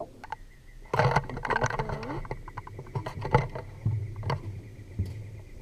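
Irregular thumps, rustles and knocks of footsteps and camera handling on a metal canopy walkway, busiest about a second in, with a faint steady high tone behind from then on.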